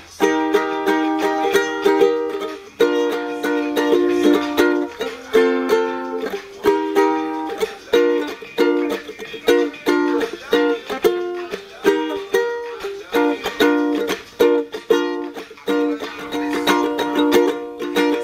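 Ukulele strumming chords in a steady rhythm, with short breaks between phrases.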